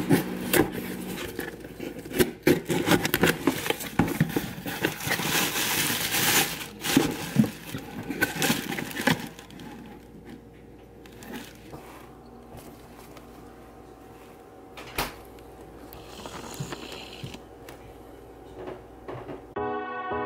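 A cardboard shipping box being cut open and unpacked: dense crackling, clicks and scrapes of tape, flaps and packing for about nine seconds, then quieter handling with scattered ticks. Music starts just before the end.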